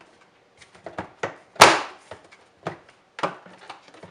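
Plastic evaporator cover of a Samsung RB1955 fridge-freezer being pressed and snapped into place: a series of irregular clicks and knocks, the loudest about one and a half seconds in.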